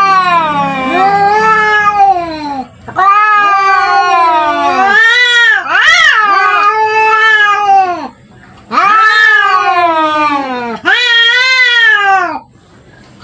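Domestic cats caterwauling in a fight standoff: a run of about five long, wavering yowls that rise and fall in pitch, with short pauses between them.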